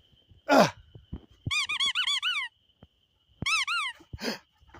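Squeaky dog toy squeezed in two quick runs of repeated high squeaks, after a short rough burst of noise near the start.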